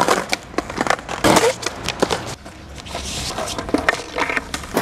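Skateboard on concrete and brick: wheels rolling with a rough grind, broken by a string of sharp knocks and slaps as the board and skater hit the ground.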